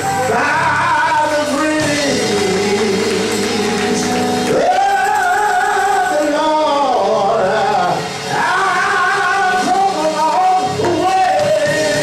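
A man singing a gospel song into a microphone in long held notes that slide between pitches, over electric keyboard accompaniment.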